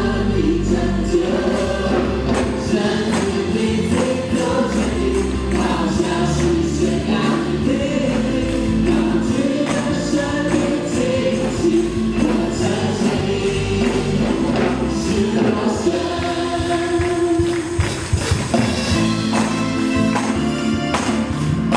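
Live worship band and a group of singers performing an upbeat Mandarin praise song, with several voices singing together over keyboard, bass and drums, and tambourines shaken and struck in time with the beat.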